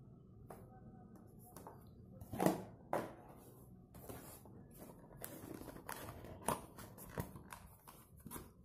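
Cardboard burger boxes being handled and opened on a wooden tray: irregular rustling and scraping with several sharp knocks, the loudest about two and a half seconds in and again just after three seconds.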